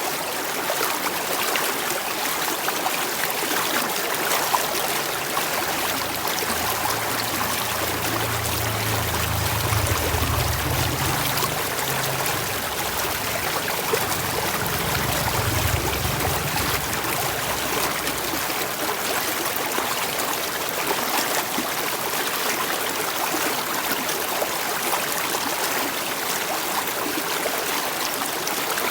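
Running water flowing steadily, like a stream. A low rumble sits underneath from about six seconds in until about eighteen seconds.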